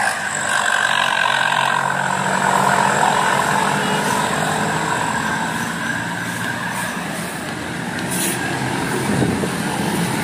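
Bus passing uphill with its diesel engine running under load while a multi-tone air horn sounds through most of the first seven seconds, its tones drifting slightly lower. A short hiss comes about eight seconds in, and the engine grows louder near the end.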